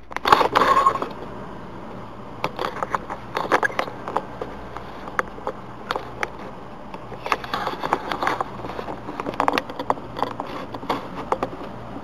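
Handling noise around an open desktop computer case: a rustling burst in the first second, then irregular clicks and scrapes.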